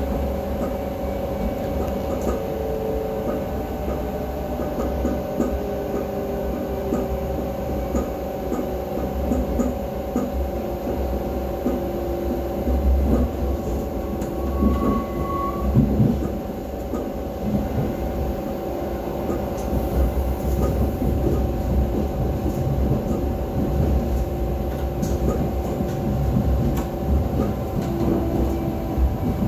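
Renfe Cercanías commuter train heard from inside the carriage while running: a steady low rumble of wheels on track under a constant hum, with scattered faint clicks.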